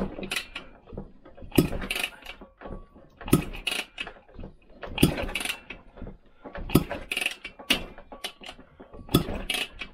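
Vespa PX two-stroke engine being turned over by hand on its kickstart during a compression test, with clicking and clattering from the kickstart gears on each stroke. There is a stroke roughly every one and a half to two seconds. Each stroke pumps up the compression gauge in the plug hole, which reaches about 75 psi.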